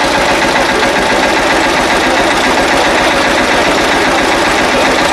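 An engine running steadily and loud, with a fast, even throb.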